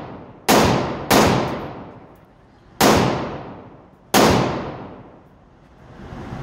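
Four pistol shots from a 5.7×28mm handgun, each ringing out and fading over about a second in the echo of an indoor range. The first two come about half a second apart, then the last two follow more slowly.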